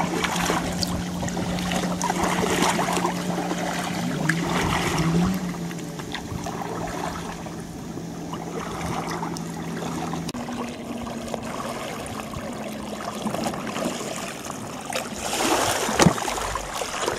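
Double-bladed kayak paddles dipping and splashing, with water washing along the hull of an inflatable kayak under way. A steady low hum runs through the first ten seconds or so.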